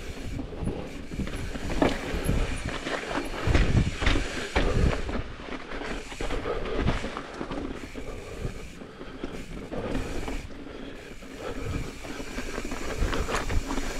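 Mountain bike rattling over rough rock, with irregular knocks and bumps as it rides over the trail's rock features.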